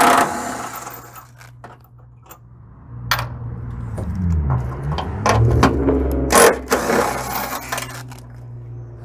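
Cordless power driver with a socket running the 18 mm motor-mount bolts out, its motor speeding up and slowing in short runs. Sharp metallic clicks and clinks of the socket and the loosened bolts come in between.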